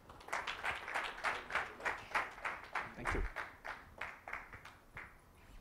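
Audience applause: separate hand claps, about three a second, fading out near the end.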